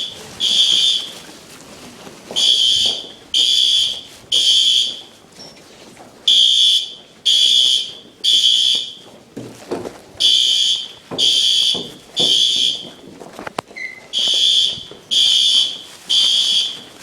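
School fire alarm sounding a high-pitched tone in groups of three short blasts, a new group about every four seconds: the temporal-three evacuation signal.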